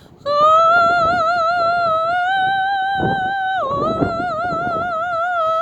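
A woman's voice singing one long, high sustained vowel with a steady vibrato as a vocal warm-up exercise. The pitch dips briefly about halfway through, then steps up to a higher note near the end.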